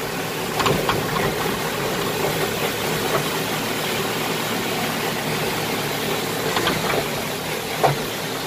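JCB backhoe loader's diesel engine running steadily, heard from inside the cab as the backhoe levers are worked, with a few short knocks.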